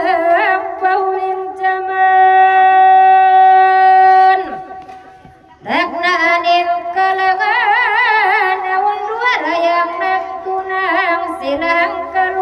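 A voice singing a slow, ornamented melody: long steady held notes, then wavering runs with heavy vibrato. It breaks off for about a second midway before the singing resumes.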